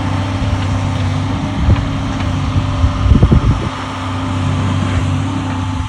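An engine running steadily, with a few low thumps, the loudest cluster about three seconds in.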